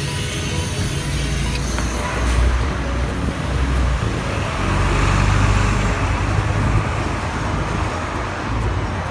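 Alexander Dennis Enviro500 MMC double-decker bus engine running at the stop and pulling away, a deep rumble that swells and then eases, over general street traffic noise.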